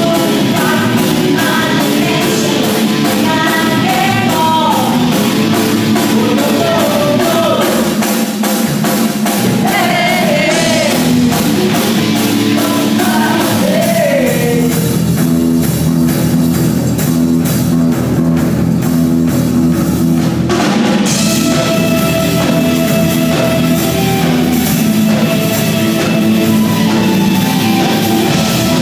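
Live rock band playing: a woman singing over electric guitars, a drum kit and keyboard, the voice heard mainly in the first half, with held instrumental notes later.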